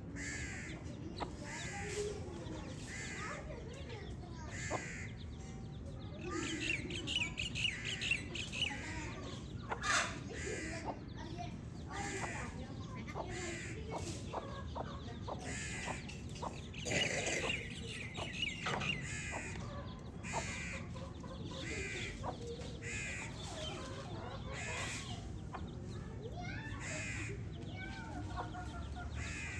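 Baby chicks peeping: short, high calls, many of them falling in pitch, repeating about once a second, with several chicks calling over one another twice, about a third and about three fifths of the way through, among a few light clicks.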